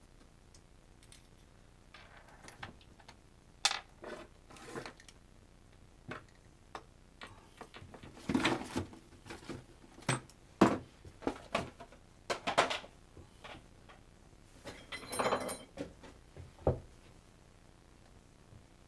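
Small metal parts and hand tools being picked up and set down on a wooden workbench: scattered clicks, clinks and light knocks, with two brief rustling spells.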